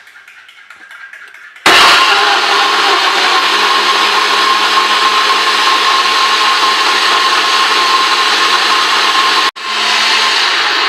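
Electric blender switched on about two seconds in, running steadily as it blends a smoothie. It cuts out for a split second near the end, then runs on.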